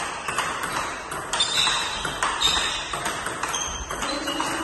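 Table tennis rally: the celluloid-type ball striking paddles and the tabletop in a quick run of sharp pings, about two to three a second.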